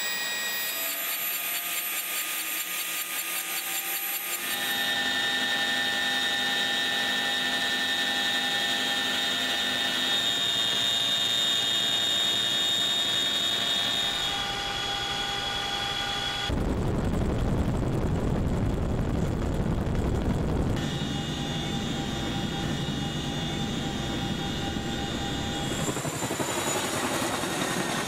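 CH-47 Chinook helicopter: the high steady whine of its twin turboshaft engines over the noise of its tandem rotors. The sound changes abruptly several times between shots, with a rougher stretch of rotor and wind noise and little whine in the later part.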